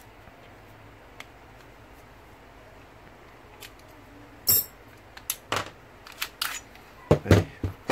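Clicks and clacks of a KJ Works KP06 hi-capa airsoft pistol being taken apart by hand, with parts knocking against each other. After a few quiet seconds there is one sharp click about halfway, then a run of lighter clicks and knocks near the end.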